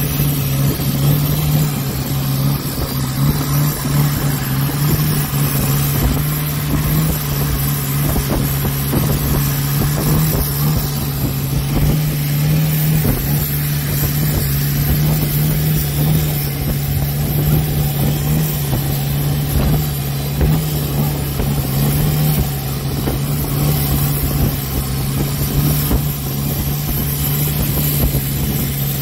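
Longtail boat's stern-mounted inboard engine running steadily at cruising speed, a constant low drone, with water rushing and splashing along the hull.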